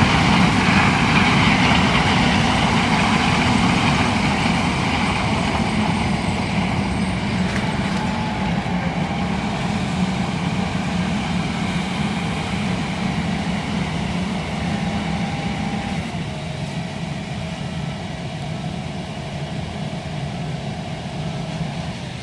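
John Deere S680 combine harvester running steadily, its engine rumble and machinery noise growing gradually fainter.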